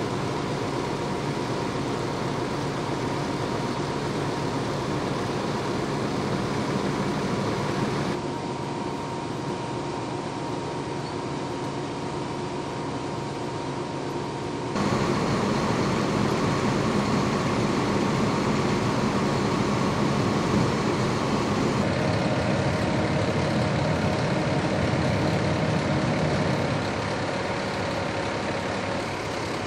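Heavy vehicle engines idling steadily, with a faint steady hum over them. The sound changes abruptly in level and tone about 8, 15 and 22 seconds in.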